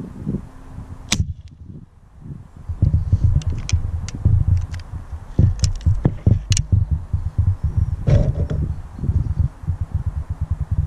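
A single shot from a .22 Webley Eclipse underlever spring air rifle, a sharp crack about a second in. Then wind buffets the microphone in a heavy, uneven rumble, with scattered clicks as the rifle is handled.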